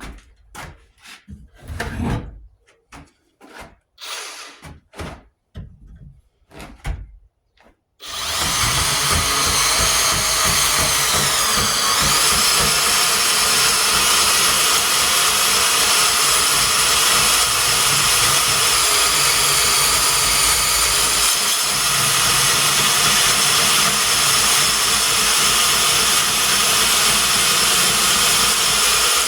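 A few scattered knocks and clicks, then a Hercules 20-volt cordless compact band saw starts about eight seconds in and runs steadily as it cuts a quarter-inch-thick steel hitch piece. Its high whine dips briefly in pitch soon after it starts.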